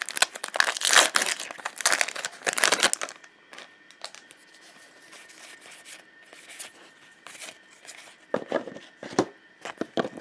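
Foil booster pack wrapper being torn open and crinkled for the first three seconds. Then quieter rustling of the trading cards being pulled out and fanned, with a short burst of card handling about eight seconds in.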